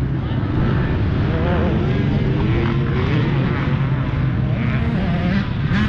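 Dirt bike engines: a 300 cc two-stroke motocross bike running at low revs, with other bikes revving up and down on the track.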